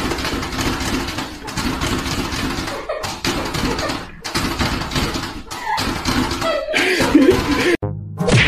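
People laughing and talking over a noisy home-video soundtrack. Near the end it cuts off abruptly and music begins.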